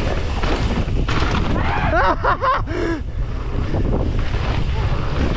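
Wind buffeting the camera microphone and mountain-bike tyres rumbling over a dirt trail at speed, a steady rushing noise with heavy low rumble.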